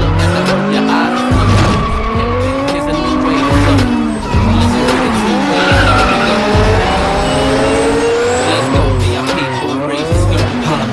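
A rap track with a heavy bass beat plays over a car's engine revving up and down, with tyres squealing.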